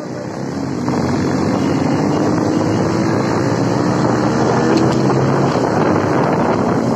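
Motorcycle engine running under way, with wind rushing over the microphone; it gets louder about a second in.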